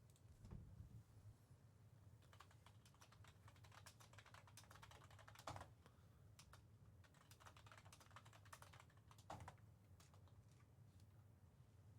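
Faint typing on a computer keyboard: a run of quick keystroke clicks, with a couple of slightly louder knocks.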